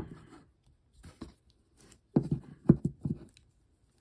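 Small plastic clicks and knocks from handling a plastic action figure while pushing a toy weapon into its hand: a sharp click at the start, a faint one about a second in, and a quick run of knocks a little past two seconds in.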